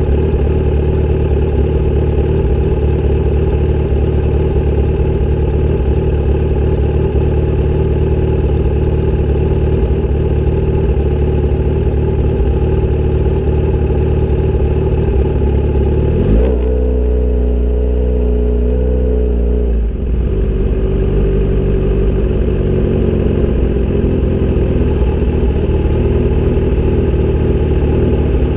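Kawasaki sportbike fitted with an SC-Project aftermarket exhaust, idling at a standstill. A little past the middle its note steps up sharply, holds for about three and a half seconds, then drops back suddenly to idle.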